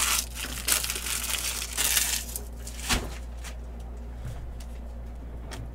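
Foil wrappers of football trading-card packs crinkling and tearing as packs are ripped open, with one sharp click about three seconds in, then only a low steady hum.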